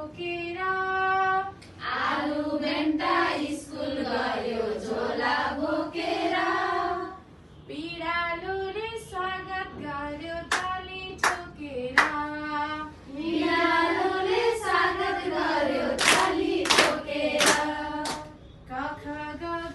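A group of women singing a Nepali children's song in unison, clapping their hands along. Sharp handclaps stand out on the beat, mostly in the second half, between sung lines that pause briefly.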